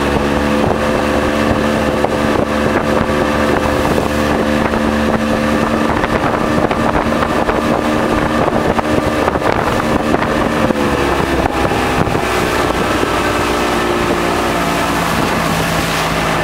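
Boat motor running at speed with wind on the microphone. The engine note holds steady, then drops in pitch from about ten seconds in as the boat slows.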